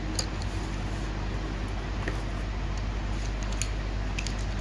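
A few faint clicks and light knocks of art supplies being handled and set down on a tabletop, over a steady low background hum.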